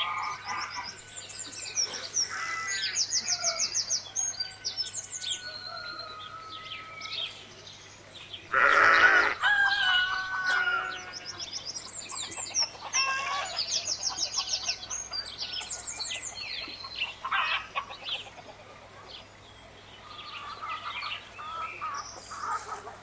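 Birds chirping with fast, repeated high trills, and a loud chicken call lasting about two seconds, starting near the middle.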